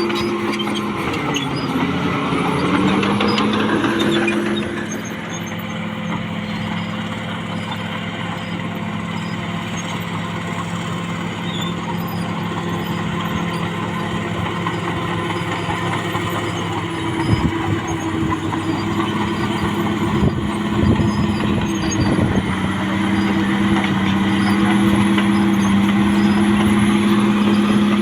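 Diesel engine of a CAT D6R XL bulldozer running steadily under load. Its pitch sags and recovers in the first few seconds, as if lugging down and picking back up. A few sharp knocks come about two-thirds of the way through.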